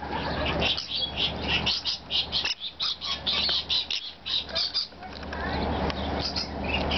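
Several rainbow lorikeets calling at close range: a rapid, continuous string of short, shrill chirps and screeches.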